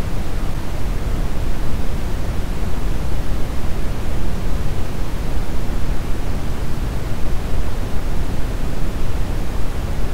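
Steady brown noise: a continuous, even rushing hiss weighted heavily toward the low end, with no changes or events.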